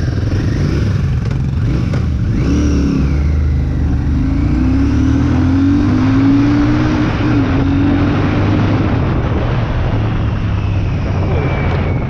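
Royal Enfield Shotgun 650's 648 cc parallel-twin engine running under way, with rushing wind. In the middle the engine note climbs in steps and falls back a few times as it accelerates.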